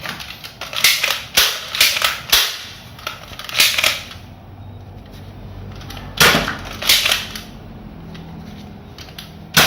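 Toy pistol firing: a quick run of sharp cap-gun-like bangs in the first two and a half seconds, then scattered single shots later on.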